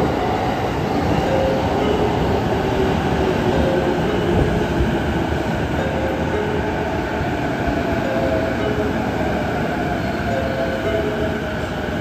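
JR East E233-5000 series electric train pulling into an underground station platform: a loud, steady rumble of wheels and running gear, with short higher tones coming and going over it.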